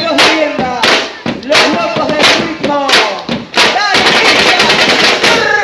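A marching carnival drum troupe playing snare drums and larger drums together in a fast, driving beat, with voices over the drumming.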